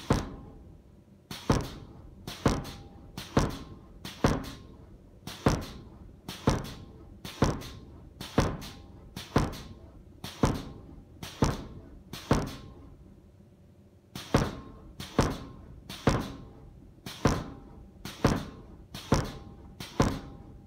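Homemade air-driven forging power hammer, a 69 kg ram with railway-rail striking faces, delivering single blows onto a red-hot steel bar, about one blow a second. Each blow is a sharp thunk with a brief metallic ring, and the blows pause for about two seconds midway.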